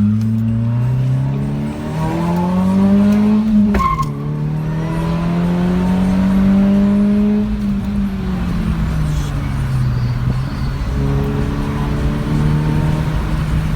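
2000 Ford Focus ZX3's four-cylinder engine through a newly fitted aftermarket cat-back exhaust, climbing in pitch under acceleration. The pitch drops sharply about four seconds in, rises and falls slowly again, and then holds steady near the end.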